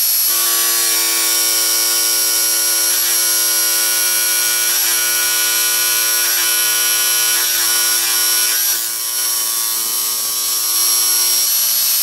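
Small 75-watt benchtop scroll saw running steadily with a hum and a high whine, its blade cutting a thin sheet of G10 fibreglass laminate.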